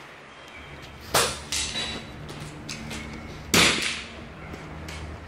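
Two sharp bangs about two and a half seconds apart, the second louder, each ringing briefly.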